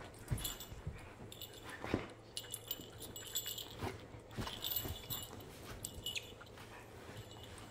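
Two dogs play-wrestling on a sofa: irregular scuffles, rustling against the cushions and soft mouthing and dog noises.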